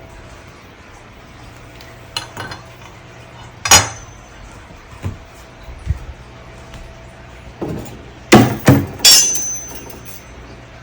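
Stand parts being fitted together by hand: scattered sharp knocks and clicks as the side bars are pushed onto the upright pole and snap-locked in place. One loud knock comes about four seconds in, and a quick run of three loud ones comes near the end.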